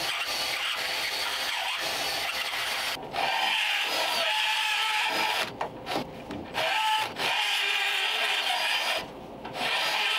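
Die grinder spinning a long carbide burr, cutting out the last of a rusted-in steel stud from a tapered shock mount: a steady high whine and grinding whose pitch wavers under load, easing off twice, about halfway through and again near the end.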